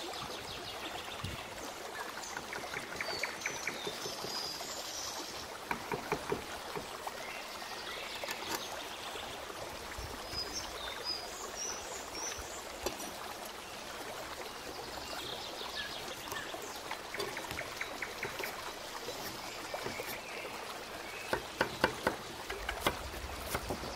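Chef's knife chopping vegetables on a bamboo cutting board: runs of short cutting taps as crisp radish, green pepper and lettuce are sliced, louder and quicker near the end. A steady water-like trickle runs underneath.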